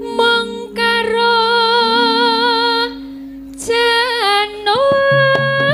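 A sinden (female Javanese singer) singing a tembang in long held notes with a wavering vibrato, over sustained gamelan tones. Near the end drum strokes come in.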